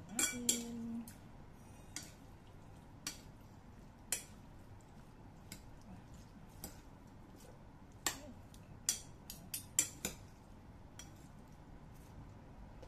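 Metal fork clinking and scraping against a ceramic plate while a salad is tossed. The clinks are scattered and sharp, with a quick cluster of several about eight to ten seconds in.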